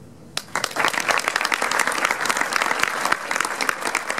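Audience applauding, many people clapping densely, starting suddenly about half a second in after a brief hush.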